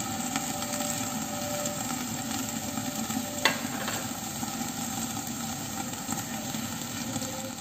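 Sweet potato leaves with a little added water sizzling and steaming under the glass lid of a stainless steel wok, a steady hiss, with one light click about three and a half seconds in.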